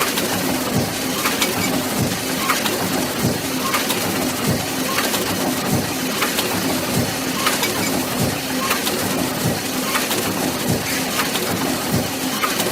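Mechanical book press running steadily: continuous machine clatter with a sharper clack repeating about every second and a quarter, and lighter knocks between.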